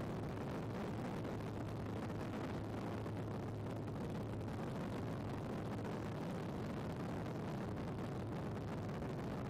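A steady, deep rumble of noise with a faint low hum, unchanging throughout.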